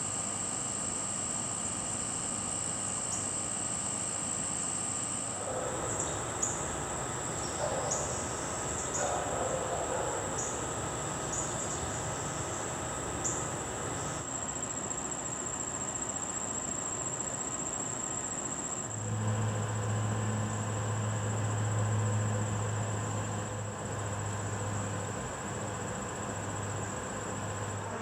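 A steady, high-pitched trill of singing insects carries on throughout, with short chirps over it for a while. From about two-thirds of the way in, a low steady buzz of a bee's wings joins it.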